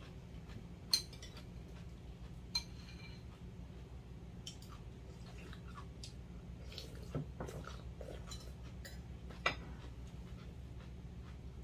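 Metal spoons and chopsticks clinking and tapping against ceramic bowls and plates while two people eat. The loudest sharp clinks come about one second, two and a half seconds and nine and a half seconds in, and some ring briefly. Softer taps and scrapes fall between them over a steady low hum.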